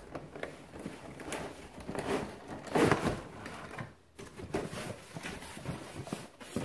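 Unboxing noise: a cardboard sous vide cooker box sliding open and rustling, with the cooker's black plastic packaging tray scraping and knocking on the counter. The loudest scrape comes just under three seconds in.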